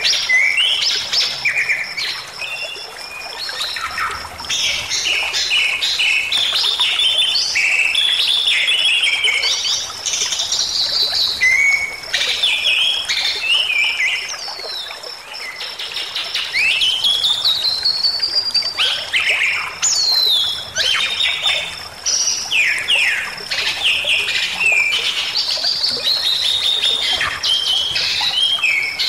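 Bali myna singing without a break: fast runs of chattering notes, harsh squawks and short whistles, with one long whistle that rises and falls about seventeen seconds in.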